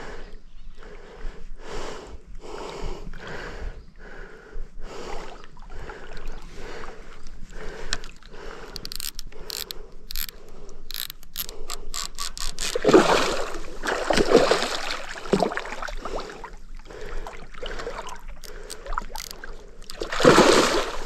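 Baitcasting fishing reel clicking and ratcheting as it works, first in slow even strokes and then in a fast run of clicks. Two loud rushes of noise come about 13 seconds in and again near the end.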